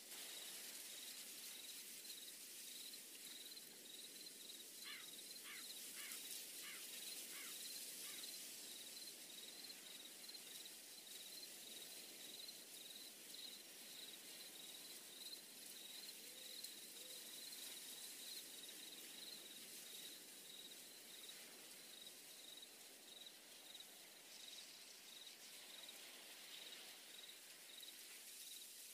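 Faint night ambience of a cricket chirping steadily, about twice a second, over a soft hiss, with a run of six short chirps from another creature about five seconds in.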